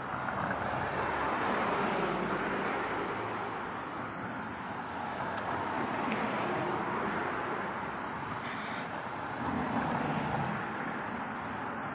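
Road traffic noise: cars passing on the street, swelling about two seconds in and again near ten seconds.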